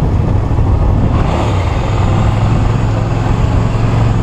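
Suzuki SV650 V-twin motorcycle engine running steadily while riding at cruise, a constant low hum.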